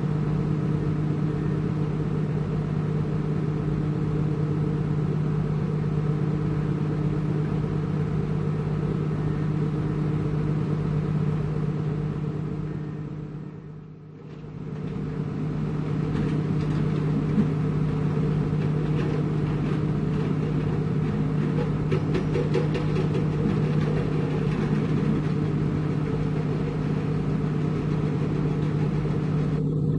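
Heavy construction machinery's diesel engine running steadily with a low hum; the sound fades down and back up about halfway through.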